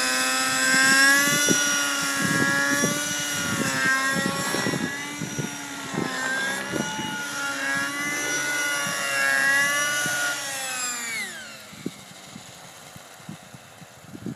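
Fuel-engined RC helicopter in flight, its engine and rotor whine wavering up and down in pitch as it manoeuvres. About eleven seconds in the pitch falls away quickly and the sound drops much quieter as it settles onto the grass with the engine throttled back.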